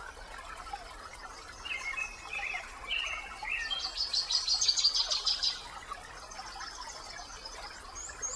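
Small songbirds singing: a few chirped phrases, then a loud, rapid high trill about four seconds in, and a run of short, high repeated notes near the end.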